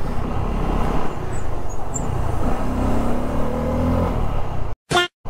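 Motorcycle engine and wind noise while riding, the engine note rising a little past halfway as it speeds up. Near the end the sound cuts out for about half a second, broken by a brief blip.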